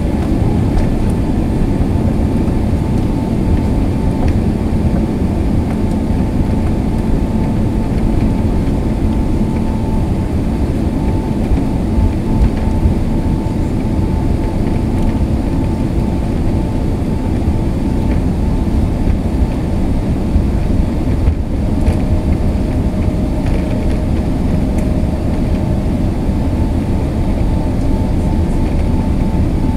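Airbus A380 jet engines heard from inside the cabin by the window, running loud and steady with a deep rumble and a high whine as the aircraft rolls along the ground. A second, lower whine joins for a few seconds past the middle.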